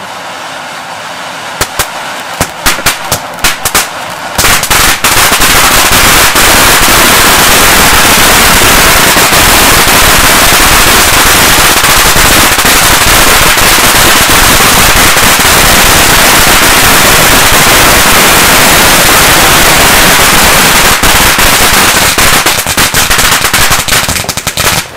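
Fountain firework (Lesli/Röder Drachenfeuer Gold, a large 200 g ground fountain) hissing softly as it throws its gold spray. About two seconds in, separate crackles start, and from about four seconds in it breaks into dense, very loud continuous crackling. Near the end this thins out to scattered cracks.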